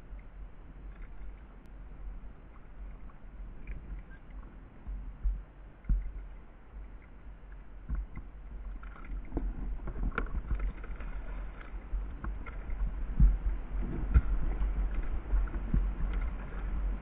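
Hooked fish splashing at the water's surface beside a plastic kayak while the angler fights it, over a steady low rumble, with a few dull thumps, the strongest about two-thirds of the way through.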